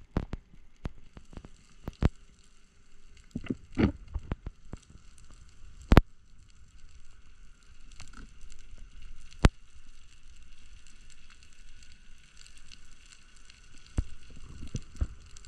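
Underwater sound on a freediver's camera: scattered sharp clicks and knocks, the loudest about six seconds in, over a faint steady crackling hiss.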